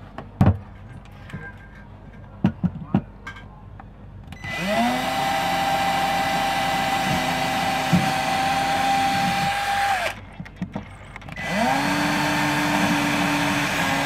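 AEG cordless drill running in two long bursts. Each spins up quickly to a steady whine: the first lasts about six seconds, and the second starts after a short pause. A few sharp clicks and knocks from handling come before the first run.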